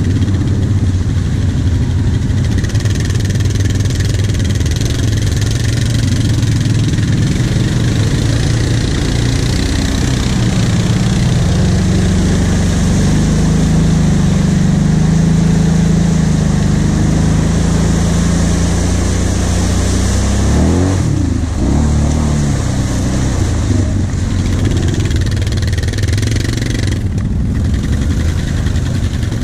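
Kawasaki KVF 750 Brute Force ATV's V-twin engine running under load while the quad drives through muddy water, the engine note heavier in the middle and swinging up and down in revs about two-thirds of the way through. Tyres churn and splash through the mud.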